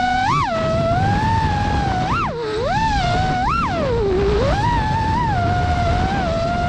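FPV quadcopter's four T-Motor F40 Pro IV brushless motors and propellers whining, the pitch swooping up and down sharply with each throttle punch: quick upward swoops about a third of a second in, around two seconds and twice near three seconds, then a dip before a steadier whine. A low rush of wind noise runs underneath.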